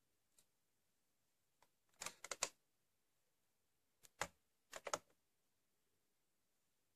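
Plastic handset of a Sanyo AD400 desk telephone lifted off and set back on its cradle: a quick cluster of sharp clacks and hook-switch clicks about two seconds in, and another about four to five seconds in.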